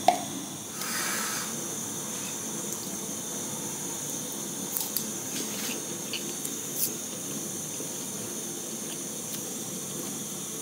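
A spoon knocks once and scrapes the inside of a nut-butter jar, then a few light clicks of cutlery on a plate, over a steady hiss.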